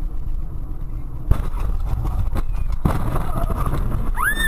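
Car collision heard from inside the cabin of the dashcam car: steady engine and road rumble, then a sudden loud impact about 1.3 s in, followed by a few more knocks and rattles. A short high-pitched cry rises and falls near the end.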